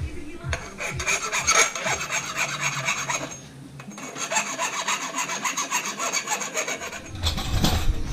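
A hand file rasping back and forth across the cut end of a fork steerer tube to deburr it. The strokes come in two quick runs with a short pause between them, and a louder bump of handling follows near the end.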